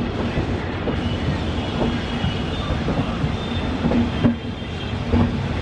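LHB passenger coach running along the track: a steady rumble with scattered clicks from the wheels.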